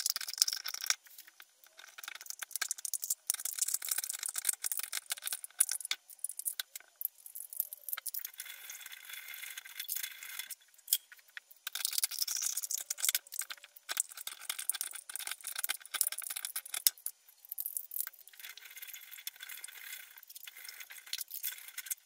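Scissors cutting through a thin metal drinks can: a rapid run of small clicks and crinkles as the blades work through the can wall, in stretches of a few seconds with short pauses between cuts.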